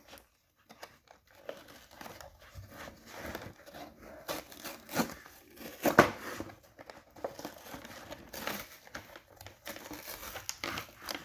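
Cardboard toy box and its paper packaging being torn open by hand: irregular rustling, crinkling and ripping, with the sharpest rip about six seconds in.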